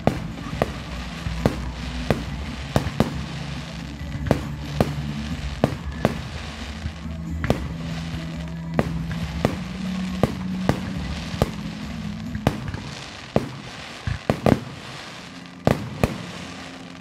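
Fireworks display: aerial shells bursting in a steady run of sharp bangs, about one to two a second, with a quick cluster of cracks near the end, over background music.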